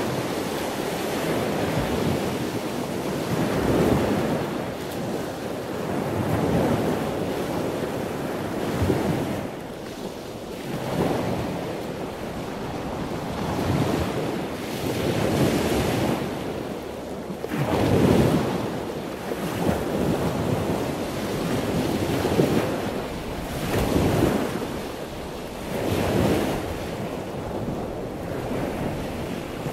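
Ocean surf: waves washing in and drawing back, swelling every couple of seconds.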